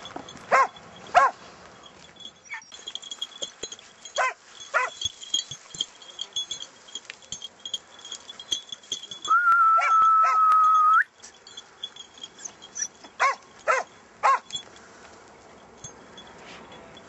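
Hunting hounds barking in short bouts of two or three calls, with pauses between. A single long, steady, high note is held for about two seconds midway.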